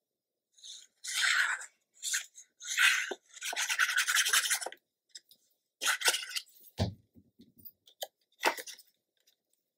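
Paper and cardstock rustling and rubbing under the hands in several short bursts, with a few light clicks and a single dull knock about seven seconds in as the plastic glue bottle is set down on the cutting mat.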